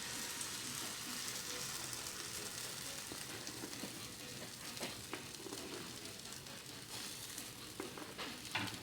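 Blueberry pancake batter frying in a hot skillet greased with palm oil: a steady sizzling hiss with faint pops, slowly dying down.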